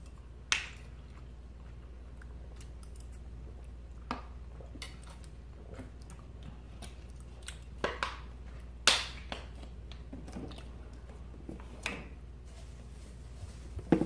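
Metal forks clicking and scraping against ceramic dinner plates, with several sharp clicks spaced irregularly, and quiet chewing in between.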